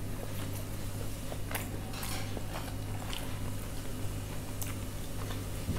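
A person chewing a mouthful of rice and chicken korma, with soft wet smacks of the mouth, over a steady low hum.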